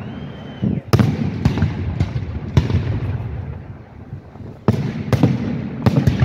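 Aerial firework shells bursting overhead: a string of sharp bangs with rumbling echoes. A quicker burst of bangs comes in the first few seconds, a lull follows, and a second cluster comes near the end.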